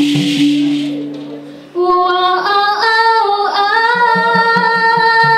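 Song performance: the accompaniment with its held note and drum beat fades over the first two seconds, then a female voice sings a long held, wavering line. Drums come back in about four seconds in.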